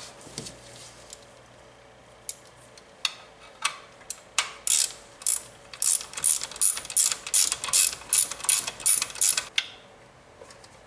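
Hand ratchet wrench being swung back and forth on a bolt, each return stroke giving a burst of ratchet clicks. A few slow strokes at first, then a quick steady run of about three strokes a second that stops about a second before the end.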